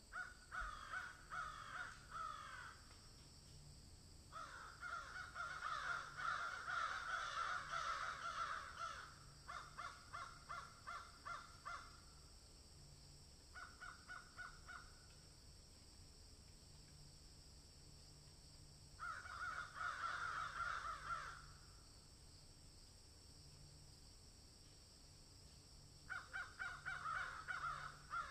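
Harsh, cawing bird calls given in quick runs of many notes: about six bouts of a few seconds each, with pauses of several seconds between them.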